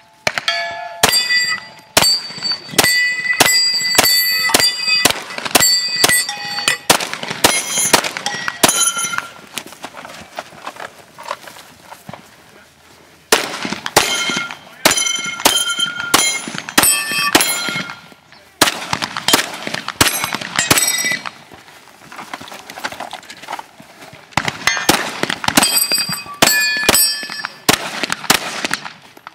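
9mm Glock 34 pistol fired in rapid strings of shots, with steel targets ringing as they are hit; four quick strings separated by pauses of a few seconds.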